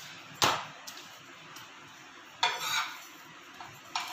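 Steel spatula knocking and scraping against a hot tawa while a thin flour sheet is turned on it. There is a sharp knock about half a second in, a scrape around two and a half seconds in, and a couple of light clicks near the end.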